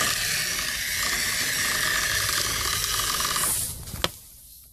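Toy RC monster truck's motor running with a steady hissing whine as it drives through tall grass, cutting off about three and a half seconds in. A single sharp click follows as a hand grabs the truck.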